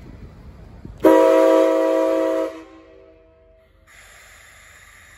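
Whistle of the D51 steam locomotive No. 146: one blast about a second in, several pitches sounding together, held for about a second and a half before fading out. A steady hiss follows near the end.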